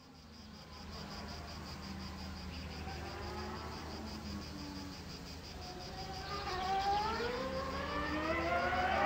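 Racing car engine, a distant buzzing that grows steadily louder, its pitch rising over the last few seconds as the car accelerates.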